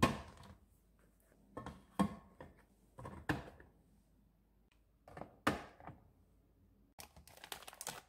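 Plastic squeeze bottles set down one after another into a refrigerator's plastic door bin: a few light knocks and clatters, then a quick run of small clicks and crinkles from packaging near the end.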